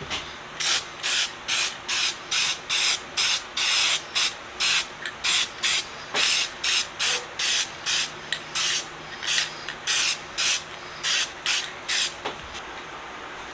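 Aerosol can of clear lacquer spraying in about two dozen short hissing bursts, roughly two a second, stopping near the end.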